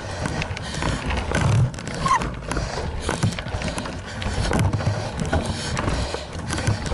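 A cyclist breathing hard while pushing a Trek 920 gravel bike up a steep, rutted dirt climb, with frequent short knocks and rattles from the bike jolting over the rough trail.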